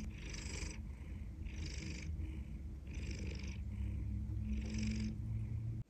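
Domestic tabby cat purring close up: a steady low rumble with a soft breathy hiss that comes and goes about every second and a half as it breathes. The purr of a relaxed, contented cat.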